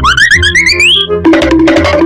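Upbeat background music with a steady beat. Over the first second a cartoon-style sound effect glides steadily upward in pitch, and a new sustained musical tone comes in just past the middle.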